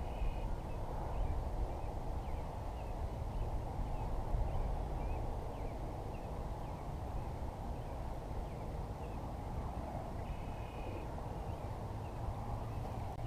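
Steady low rushing outdoor noise, like wind on the microphone, with scattered small bird chirps over it and a short buzzy bird call near the start and again about ten seconds in.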